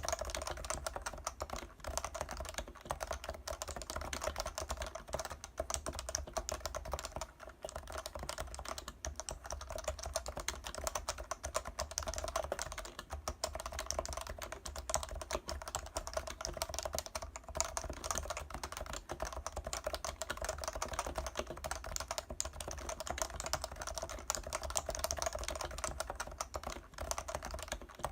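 Typing on a Leopold FC660C keyboard with Topre electrostatic capacitive switches: a fast, continuous run of keystrokes broken by a few brief pauses.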